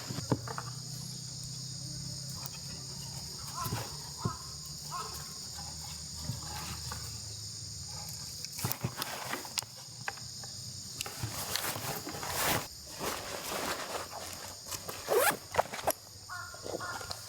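A steady, high insect drone, with scattered rustles, clicks and footsteps that grow busier in the second half.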